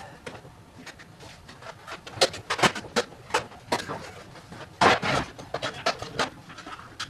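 A series of sharp, irregular clicks and knocks, several a second at times, with the loudest knock about five seconds in.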